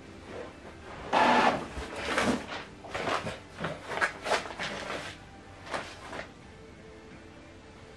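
Epson XP-4205 inkjet printer's mechanism clattering and clicking in irregular bursts while it runs its first ink initialization after new cartridges are fitted. The loudest burst comes about a second in, and the clatter dies away after about six seconds.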